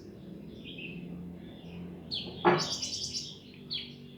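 Birds chirping, with a loud call sweeping sharply downward in pitch about two and a half seconds in, over a faint steady background.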